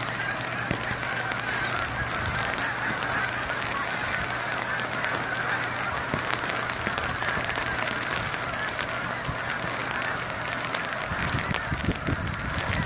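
A large flock of geese honking continuously, a dense chorus of overlapping calls as they fly in to land, over a background of rain noise. Wind buffets the phone's microphone with a low rumble near the end.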